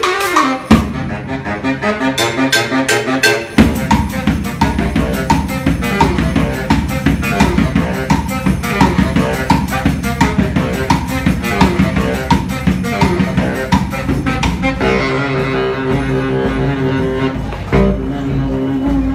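Baritone saxophone and marching bass drum playing a fast, driving dance groove live. The heavy drum beat comes in about a second in and fills out a few seconds later; near the end the drumming drops back under long held low sax notes.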